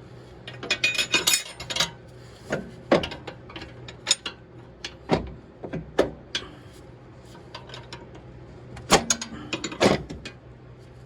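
Metal tools and suspension parts knocking and clinking as a front strut is worked back into place: a quick flurry of clinks about a second in, then single knocks every second or so, with two harder ones near the end. A faint steady hum lies underneath.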